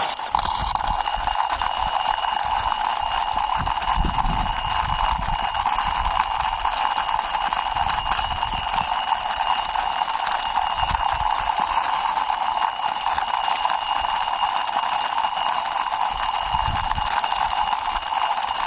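A steady, unbroken alarm-like electronic ringing buzz with a constant high whine above it.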